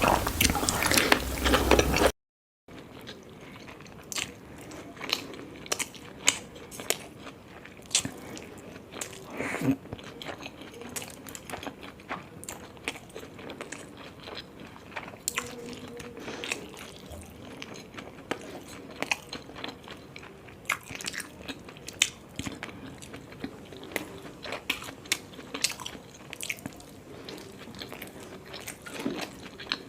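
Close-miked eating of momos: biting and chewing, with many short, sharp wet mouth clicks and crunches. A louder, denser stretch at the start cuts off suddenly with a brief gap of silence before the chewing.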